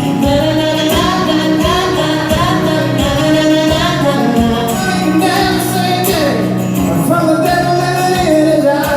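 Acoustic performance of a country song: a woman's voice singing a wordless "na na na" line over a strummed acoustic accompaniment with a steady beat.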